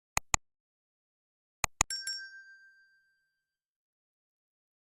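Two pairs of sharp clicks, the second pair followed by a bright, bell-like ding that rings and fades over about a second and a half, against dead silence.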